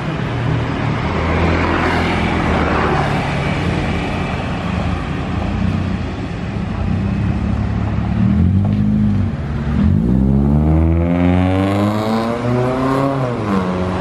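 Mitsubishi Xpander's four-cylinder engine running through an aftermarket exhaust (Hold resonator and DK-03v4 muffler) with a dense, deep bass note. It idles steadily, then revs climb in pitch twice as the car pulls away, the second climb longer, each falling off at the top.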